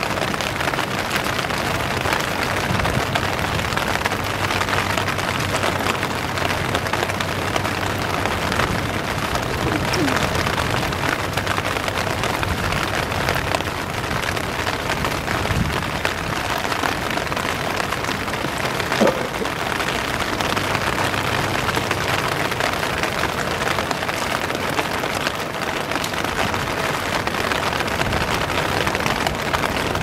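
Steady, even rushing noise of stormy surf and rain, with a low rumble underneath and no distinct events.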